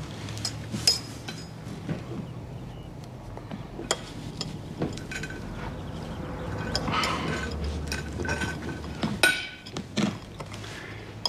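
A fork clinking and scraping against a plate in scattered light taps, with a longer scrape about nine seconds in.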